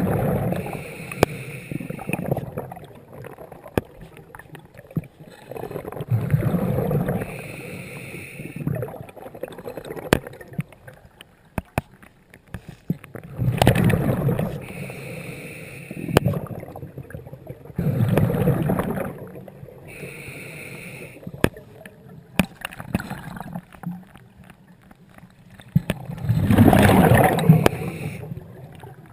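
Scuba regulator breathing underwater: a loud rush of exhaled bubbles about every five to eight seconds, five times, with a fainter hiss from the regulator on the inhalations in between.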